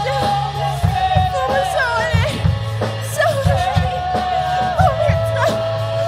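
Rock band playing: drums and bass under a long held melody line that slides between notes, with singing.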